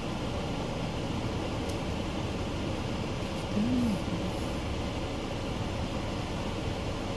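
Steady engine and road-cabin rumble of a car heard from inside, with one short tone that rises and then falls about three and a half seconds in.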